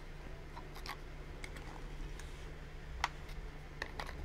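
A handful of light plastic-on-steel clicks and taps, the sharpest about three seconds in, as an empty 3D-printed PLA en-bloc clip is worked down into an M1 Garand's receiver. The soft clip will not engage.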